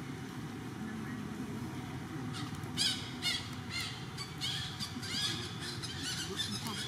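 A run of short, high animal calls, several a second, starting a couple of seconds in and fading out after about three seconds.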